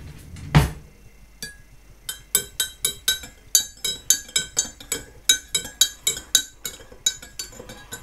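A teaspoon stirring a drink in a ceramic mug, clinking against its sides about four times a second with a short ring each time. A single dull knock comes just before the stirring starts.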